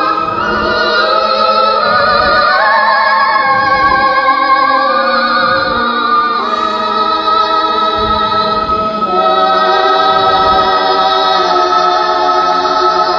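Music with sung voices holding long, wavering notes in a choral or operatic style.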